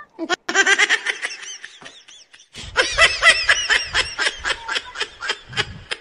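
Hearty, high-pitched laughter in two long bouts of rapid pulses. The second bout starts about halfway through and is louder, with a low rumble under it.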